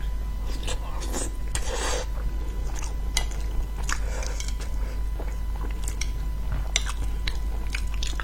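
Close-up eating sounds of seafood: chewing and biting with irregular sharp clicks and crunches, and a longer crunchy smear about two seconds in, over a steady low hum.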